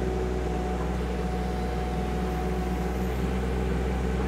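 KYMRON ZX22D diesel mini excavator running steadily while working, a low engine drone with a constant higher-pitched hum over it.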